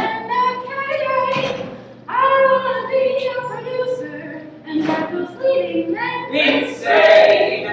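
Women singing a song during a rehearsal, with long held notes; loudest near the end.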